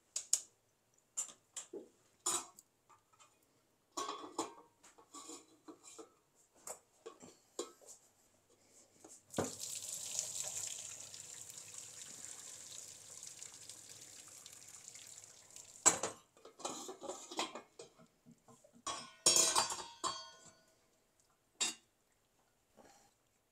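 Pots and utensils clattering in a kitchen, then water pouring steadily into a sink for about six seconds, followed by more clatter of pans and dishes.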